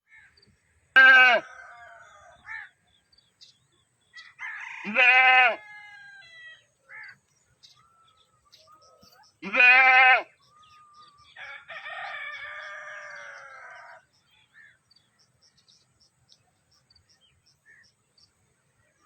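Goats bleating: three loud, short bleats a few seconds apart, then a longer, quieter, wavering bleat, with faint high chirps between them.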